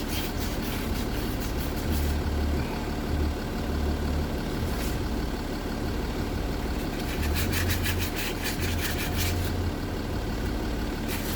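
A steady low hum like an idling engine, with spells of quick rasping strokes about seven seconds in and again near the end.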